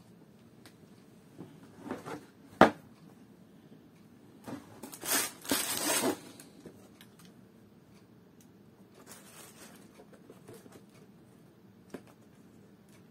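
A cardboard shoebox being opened: a single sharp knock, then crisp tissue paper rustling loudly for a couple of seconds as a boot is lifted out of it, with softer rustles and a small click later.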